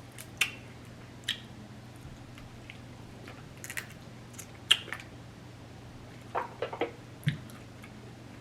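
Eating sounds: scattered short wet clicks and smacks of chewing, with a quick run of them a little over six seconds in.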